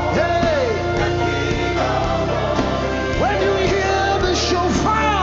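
Live gospel worship music: a band playing with voices singing over it, sung lines gliding up and down.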